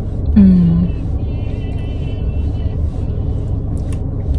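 Steady low rumble like a vehicle engine running, with a short falling hum from a person's voice about half a second in.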